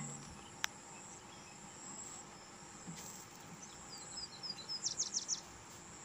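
Faint steady background with a thin high whine, a single sharp click about half a second in, and a quick run of short high chirps near the end.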